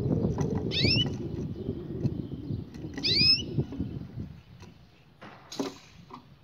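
Canary giving two rising chirp calls about two seconds apart, over a low rumble that fades out about four seconds in. A short knock comes near the end.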